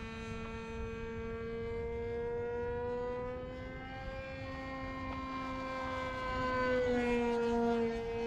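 Radio-controlled model airplane's motor and propeller droning steadily as it flies, its pitch rising a little midway; about seven seconds in it grows louder and its pitch drops as the plane passes.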